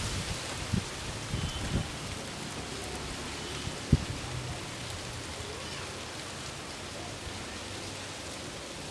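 Wind blowing with a steady hiss, and gusts buffeting the microphone as low thumps in the first few seconds, the loudest about four seconds in, while sheets on a clothesline swing and flap.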